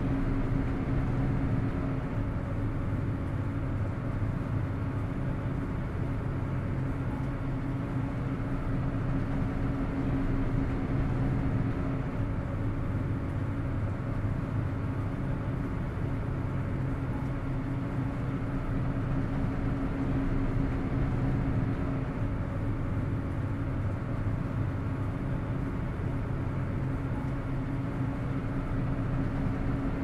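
Ferry boat's engines and machinery running, a steady drone with a constant hum over a rushing noise, unchanging throughout.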